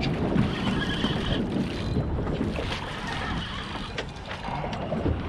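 Wind buffeting the microphone over water sloshing around a small boat, with a few faint knocks.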